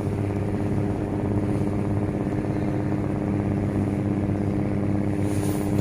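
An engine running steadily nearby, a low even drone that holds one pitch throughout.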